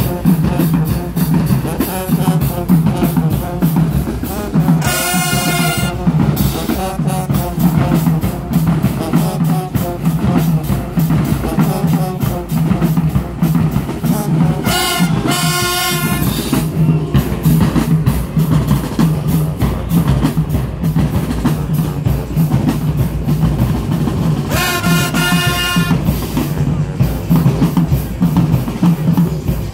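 Marching band drum line playing a steady cadence on bass and snare drums. Three times, about ten seconds apart, short pitched blasts that are plausibly the horns cut in briefly over the drums.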